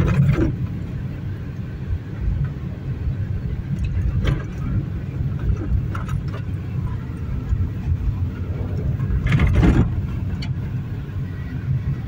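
Car driving on a rough dirt road, heard from inside the cabin: a steady low rumble of engine and tyres, with a few knocks and rattles from bumps, the loudest about nine and a half seconds in.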